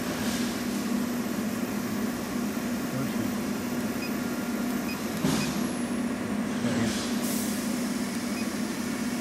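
Steady low machine hum with a constant tone, and a few brief clicks from the CNC controller's keypad, about five and seven seconds in.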